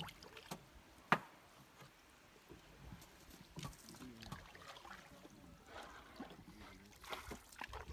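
Wooden paddle dipping and pulling through lake water beside a wooden canoe, with trickling and dripping as it lifts out. A single sharp knock about a second in.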